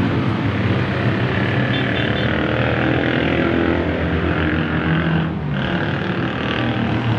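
An engine running steadily, a low hum with a brief dip about five seconds in.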